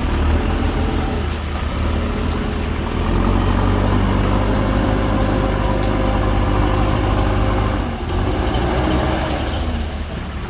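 Heavy diesel machinery engine running steadily, working harder from about three seconds in until near eight seconds, with a held tone over it while it does.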